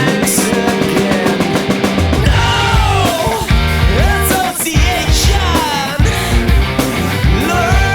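Rock music with a steady beat and gliding vocal or lead-guitar lines.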